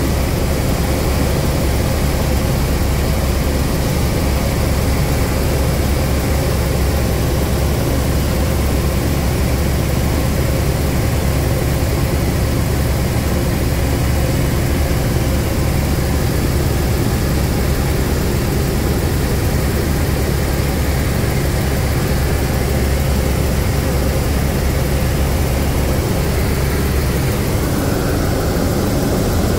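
Cabin noise of an Ecureuil H125 (AS350 B3) single-turbine helicopter in flight: the main rotor and Arriel 2B turboshaft give a loud, steady drone. The deepest part of the drone eases slightly near the end.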